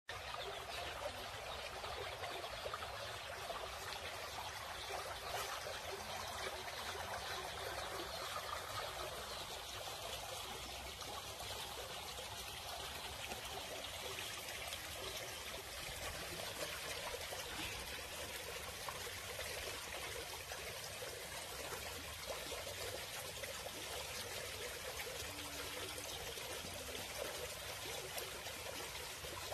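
Water trickling and running steadily in a small concrete irrigation channel, an even hiss that does not change.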